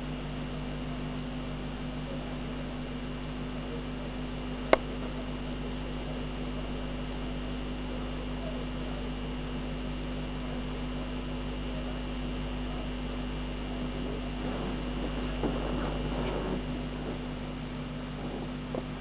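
Steady electrical mains hum, with one sharp click about five seconds in and a short stretch of rustling a little after two thirds of the way through.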